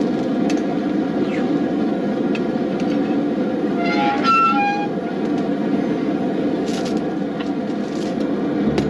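Propane gas forge burner running with a steady roar. A brief high-pitched squeal sounds about four seconds in.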